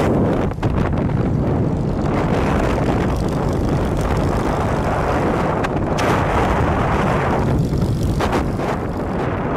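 Cruiser motorcycle riding at road speed: steady engine and road noise mixed with wind rushing over the microphone.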